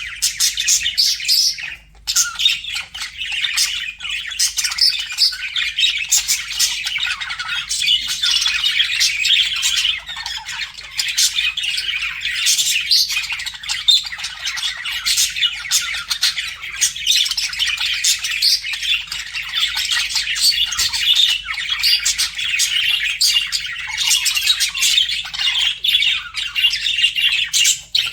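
Budgerigars chattering and warbling without a break: a dense, fast run of chirps, squawks and clicks, with one brief lull about two seconds in.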